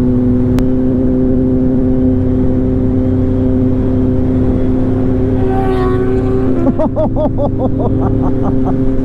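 Superbike engine running at a steady cruise with wind rush, heard from on the moving motorcycle. Past the middle, a second engine note briefly rises over it.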